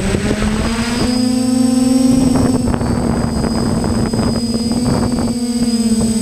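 Hexacopter's electric motors and propellers humming steadily as it lifts off and climbs, stepping up in pitch about a second in, over rough rushing wind noise on the onboard microphone.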